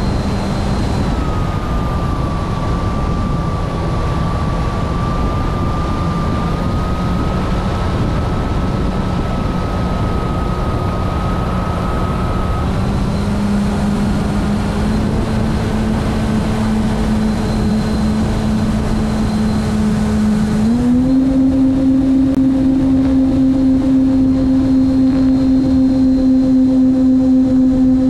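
Radio-controlled model airplane's motor and propeller heard close up from a camera on the plane: a steady drone over rushing air noise. The pitch steps up about halfway through, then again, louder, near the end, as the motor speeds up.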